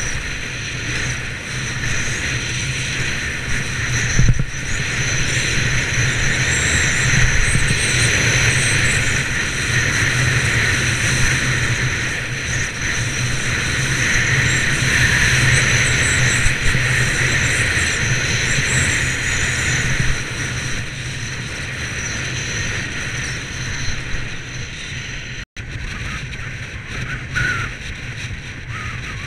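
Wind rushing over a camera microphone during a downhill ski run, mixed with the steady hiss of skis sliding over snow. The sound cuts out for an instant about 25 seconds in, then carries on a little quieter.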